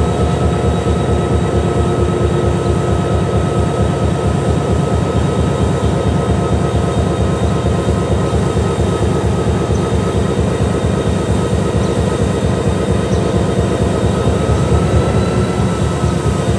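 EMD SD40-2 diesel-electric locomotive's V16 two-stroke diesel engine idling after a startup, a fast even beat with a steady whine over it.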